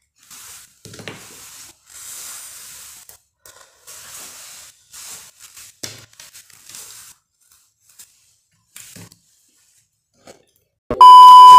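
A smoker's soft breathy puffs and exhalations on a freshly lit cigarette, coming and going, with a few small clicks. Near the end a loud, steady electronic beep tone cuts in.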